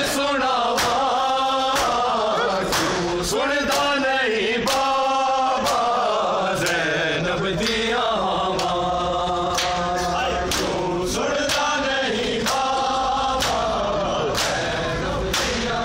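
Men chanting a noha lament together, led by a singing voice, with bare-chested matam: hands slapping chests in a steady beat about once a second.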